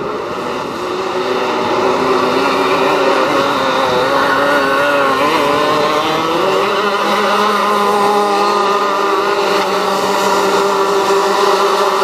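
Several go-kart engines running at once, each pitch rising and falling as the karts rev and ease off, getting louder about a second and a half in.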